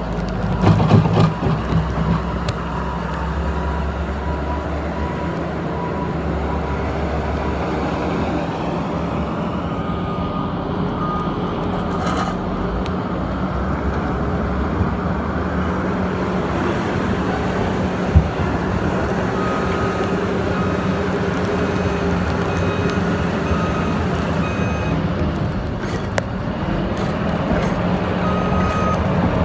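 John Deere 544H wheel loader's diesel engine running steadily as it works snow, with short reversing-alarm beeps at times. A clatter about a second in and a single sharp knock later on.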